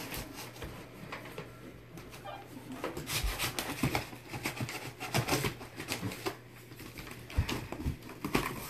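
Blade cutting along the packing tape of a large cardboard box: quiet at first, then from about three seconds in a busy run of short scrapes, rips and taps on the cardboard.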